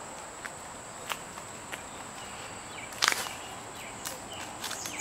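Insects droning at one steady high pitch, with a few sharp scuffs like footsteps on pavement; the loudest is a cluster about three seconds in.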